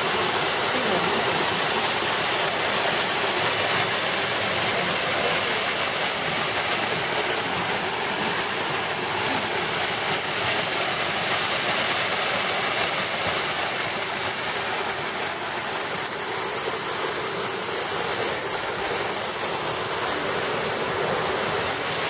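Waterfall spilling over rock into a pool: a steady rush of falling and splashing water.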